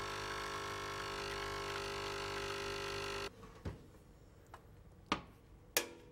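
Nespresso capsule coffee machine's pump buzzing steadily while it brews coffee into a glass, cutting off abruptly about three seconds in. Then three sharp clicks, each a second or so apart.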